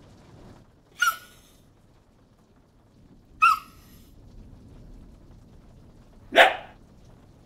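Dachshund giving two short, high barks about two and a half seconds apart, followed about three seconds later by a third, noisier short sound.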